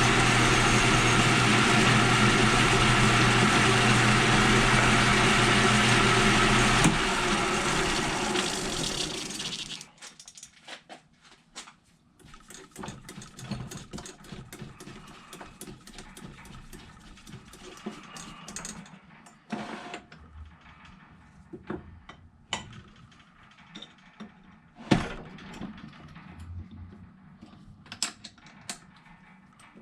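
A power tool's electric motor runs steadily, is switched off about seven seconds in and spins down to a stop over a few seconds. After that come light clicks and knocks of small metal parts being handled.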